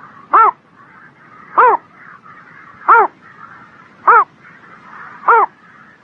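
A small bittern calling: a short call repeated five times, about once every 1.2 seconds, each one rising then falling in pitch. A faint steady background noise lies beneath.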